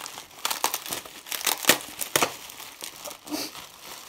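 Plastic bubble wrap with large bubbles crinkling and crackling as it is unwrapped by hand, in irregular sharp crackles, the loudest a little under two seconds in.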